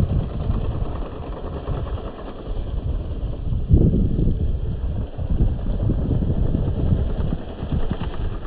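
Wind buffeting the microphone in a blizzard: an irregular, gusting low rumble that swells and sags, with a strong gust a little under four seconds in.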